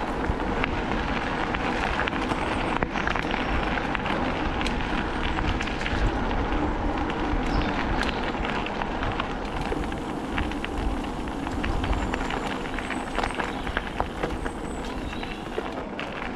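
Bicycle riding along an unsurfaced cycle path: steady tyre noise over the loose surface with many small crackles and rattles, and a low rumble of wind on the camera's microphone.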